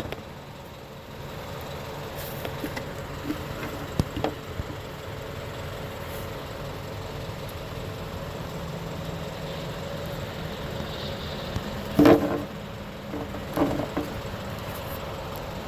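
Steady background hum with a few light clicks, then a sharp ringing metal clank about twelve seconds in, followed by a smaller clank a second and a half later: metal parts or tools being handled during work on a car's rear axle.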